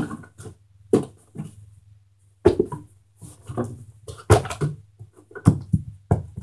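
Knocks and thumps of things being handled and put away by hand, a scattered series of sharp knocks, the loudest about two and a half, four and five and a half seconds in, over a low steady hum.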